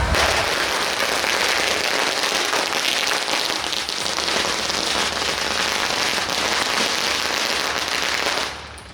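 A long string of firecrackers going off in a dense, continuous crackle, stopping suddenly near the end.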